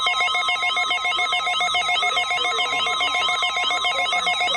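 Emergency alert attention tone for a weather-radio warning test: a steady tone near 1 kHz layered with a siren-like tone sweeping up and down about three times a second and rapidly pulsing higher tones. The steady tone stops near the end.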